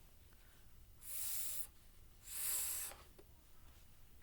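A woman's voice making a voiceless, hissing consonant sound twice, each held for under a second, as a letter sound for children to repeat.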